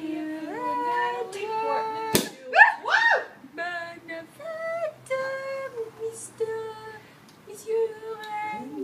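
People singing a tune. About two seconds in, a champagne cork pops with one sharp crack, followed by a quick high whoop that rises and falls.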